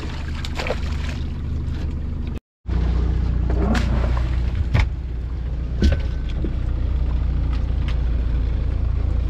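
A boat engine runs steadily with a low hum. It cuts out for an instant about two and a half seconds in and comes back a little louder, with a couple of short knocks around the middle.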